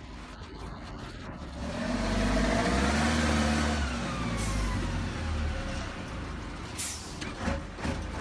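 Heavy truck diesel engine revving under load, its pitch rising and then falling, with two short hisses of air, like air brakes, partway through and a few knocks near the end.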